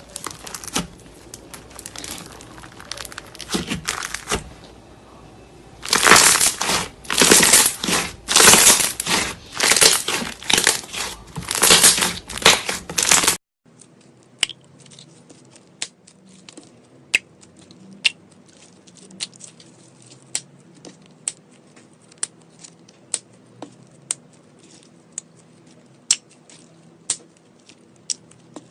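Slime being squeezed and stretched by hand, making a run of crinkly, crackling bursts. About halfway through it changes to sharp pops about once a second over a quieter background.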